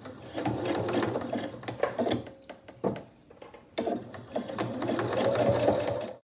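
Pfaff computerized sewing machine stitching a seam through quilted fabric, running in spells with two short pauses, each followed by a sharp click as the machine starts again.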